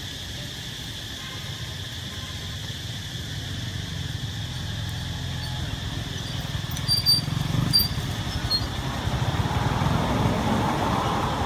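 A motor vehicle on a road, its low rumble growing louder toward the end, over a steady high insect drone. A few short, high chirps come about seven seconds in.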